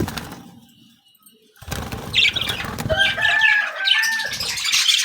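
Lovebirds flapping their wings and chirping, with a short lull about a second in, then a flurry of rustling wingbeats and shrill calls.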